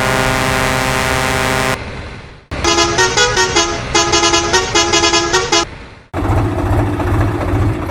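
A truck horn gives one long steady blast, then a musical horn plays a quick tune of short notes. From about six seconds in, a vehicle engine runs with a fast low pulse.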